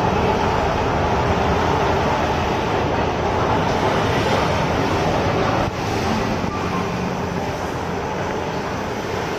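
A moving escalator running, heard while riding up it: a steady mechanical rumble and hum that drops a little in level just over halfway through.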